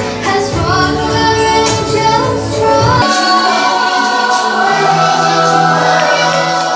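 Recorded song with choir-style singing played loud over the hall's loudspeakers as dance music; about three seconds in the bass drops out, leaving the voices.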